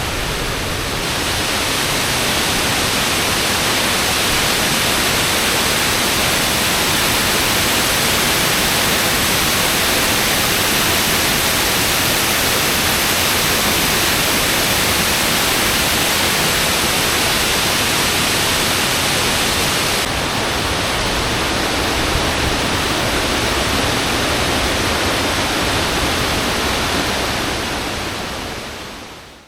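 Waterfall pouring, a loud steady rush of falling water that fades out near the end.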